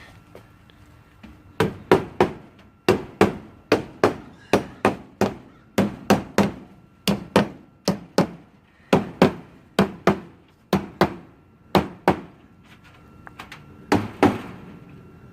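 Hammer blows, struck in quick runs of two to four for about ten seconds, then after a pause two last blows near the end.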